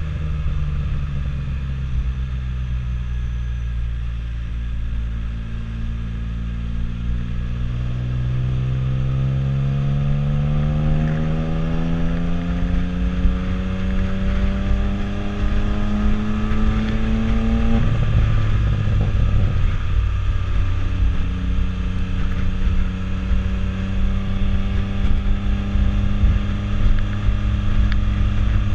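Can-Am Spyder F3-S three-wheeled roadster's inline three-cylinder engine running while riding. Its pitch holds, climbs steadily as the bike accelerates, drops abruptly about two-thirds of the way through, then settles at a steady cruise.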